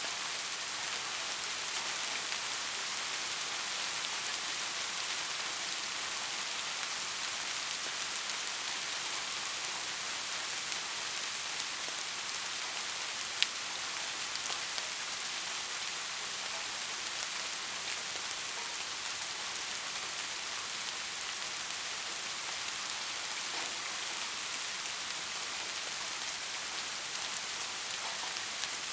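Steady rain-like hiss of a sleep-aid white noise track, weighted toward the high end, with faint scattered ticks and one sharp tick about halfway through.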